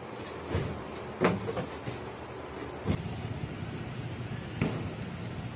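A few knocks and thuds from a door and hurried footsteps in a small room, then a steady low rumble of street traffic with a scooter riding by.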